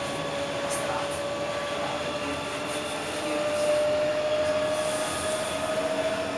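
Electric tram running on its rails, heard from on board: steady rolling noise with a motor whine that rises slowly in pitch as the tram gathers speed.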